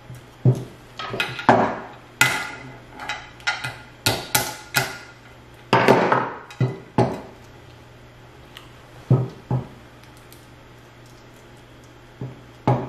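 King crab leg shells being cracked and snapped open: a quick run of sharp cracks and clacks over the first seven seconds, then a few single cracks spaced out after it.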